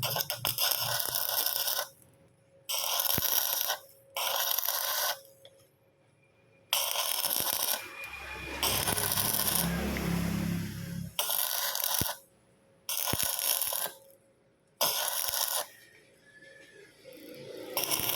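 Arc welding on the hub's bearing seat, building it up with weld metal: about seven bursts of crackling hiss, each one to three seconds long, cutting in and out sharply with short pauses between.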